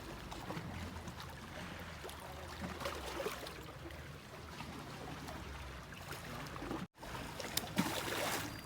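Small sea waves washing onto a beach: a steady wash of water with a low rumble. The sound cuts out for an instant about seven seconds in, then a louder rush of a breaking wave follows.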